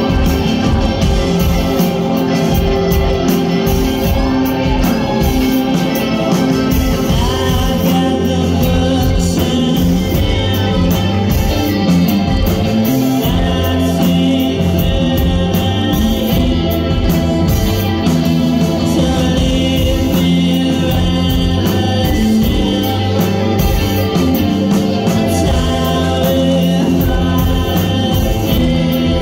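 A live band playing a song, with a lead vocal over guitar in a loud, continuous mix.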